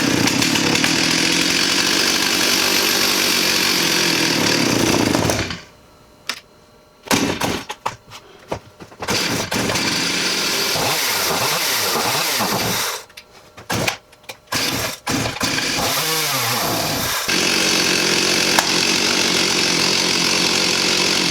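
Stihl 028 AV Super two-stroke chainsaw engine running, cutting out twice and catching again in short bursts, with a few revs before it settles into a steady run. It will not run cleanly on its own, which the owner takes as a possible blockage in the carburetor.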